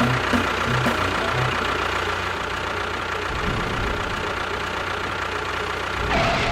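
A small engine or motor running steadily.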